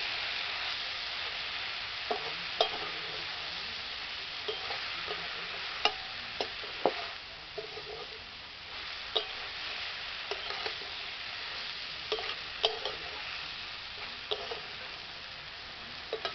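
Chopped water spinach sizzling as it is stir-fried in a metal kadai. A metal spatula scrapes and knocks against the pan at irregular intervals, about once a second.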